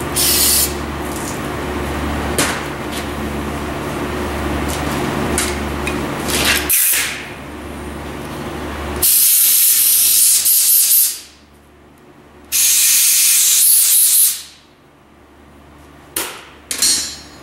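Aerosol brake cleaner sprayed in hissing bursts to flush out a fuel hose and its fittings: short squirts at first, two long sprays of about two seconds each in the middle, and two quick squirts near the end. A steady low hum runs underneath until about seven seconds in.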